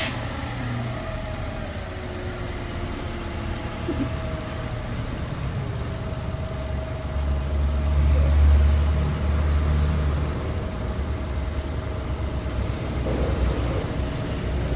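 Car engine idling steadily just after being started, with a thin steady whine over the low running sound. The rumble swells for a few seconds in the middle.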